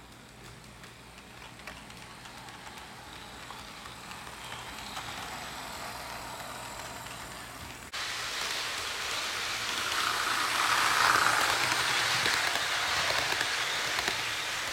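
HO scale model train running on its track: a steady rolling rattle of metal wheels on rail, growing louder, with a sudden jump in loudness about halfway through.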